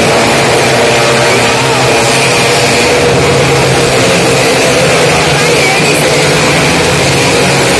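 Loud, steady drone of a motorcycle engine held at speed as the rider circles the vertical wooden wall of a well-of-death drum.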